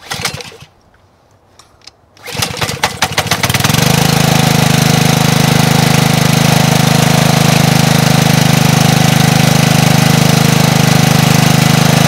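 Honda GCV190 single-cylinder four-stroke engine on a pressure washer being started: a short rattle right at the start, then about two seconds in it fires and builds over a second or two to steady running. It is running on the small amount of fuel primed into the cylinder, because the fuel line is suspected of not supplying fuel.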